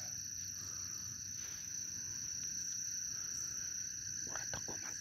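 Steady chorus of night insects, a continuous high trill that holds without a break, with a quick run of a few short clicks near the end.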